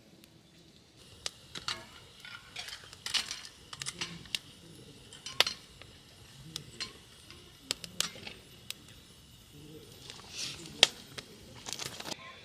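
Utensils clinking and scraping against cookware in irregular, sharp knocks and clinks, starting about a second in.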